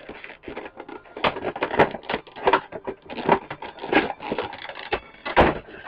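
Toy packaging being wrenched and torn open: irregular crackling and crunching, loudest about five and a half seconds in.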